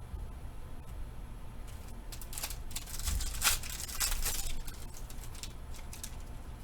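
Trading cards being handled and flipped through: a quick run of crisp clicks and rustles, densest in the middle.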